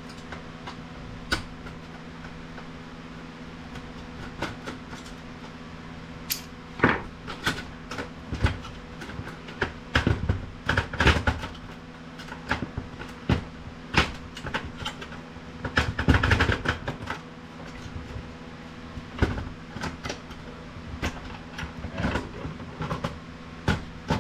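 Irregular clicks, knocks and rattles of plastic and metal printer parts being handled as a motor is worked loose from the printer, busiest about ten seconds in and again around sixteen seconds, over a steady low hum.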